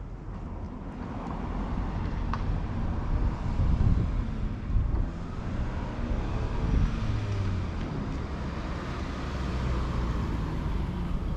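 A motor vehicle going by: a low engine hum with road noise that builds over the first few seconds and stays up through the rest.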